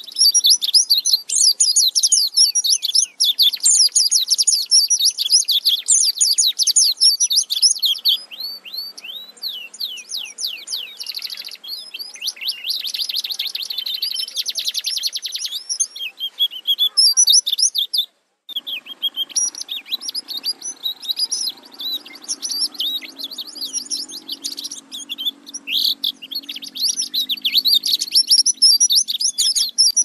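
A white-eye (pleci) singing a long, continuous rolling song ('ngerol') of rapid, high-pitched chirps and trills in fast 'nembak' bursts. There is one short pause about two-thirds of the way through.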